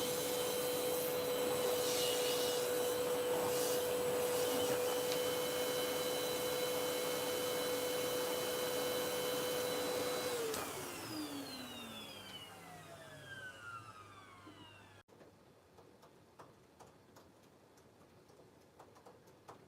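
Vacuum cleaner running steadily with a hum, then switched off about ten seconds in. Its motor winds down with a falling whine over a few seconds, leaving only faint small clicks and taps.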